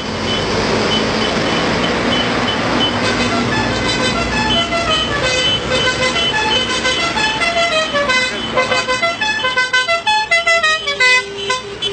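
A multi-tone musical horn playing a tune of short stepped notes, some running downward in steps, over the steady running of a convoy of tractors' diesel engines.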